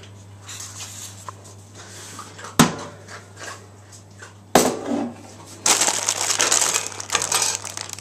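Plastic wrappers and a crisp packet crinkling and rustling as they are handled, loud and dense from a little past halfway. Two sharp knocks come before it, and a low steady hum runs underneath.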